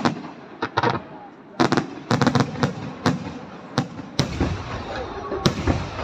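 Aerial firework shells bursting overhead in a rapid series of sharp bangs, some in quick clusters of reports. A low rumble fills in from about four seconds, and the loudest single bang comes near the end.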